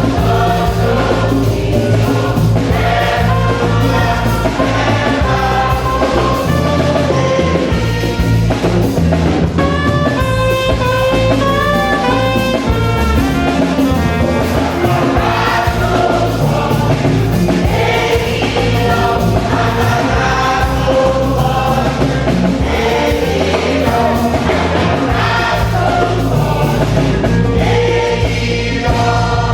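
A church choir and congregation singing a gospel hymn together, over a steady bass line and drum beats.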